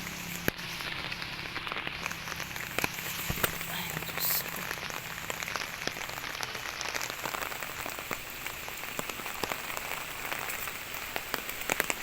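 Steady rain falling, with many separate drops striking irregularly close by.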